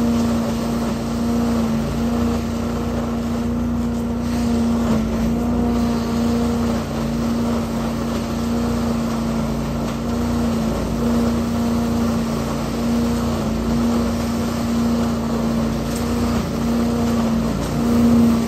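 Trailer-mounted leaf vacuum running steadily, its engine and fan drawing leaves up the wide suction hose: a loud, even drone with a steady hum under a rushing noise.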